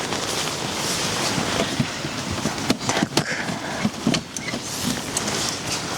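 Steady hiss of rain, with a few sharp knocks and clicks from about halfway through.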